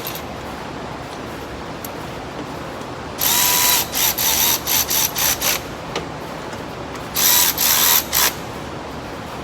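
Cordless power tool whirring in two spells, each a longer run followed by several short blips, as fasteners are driven down. A steady hiss from shop fans runs underneath.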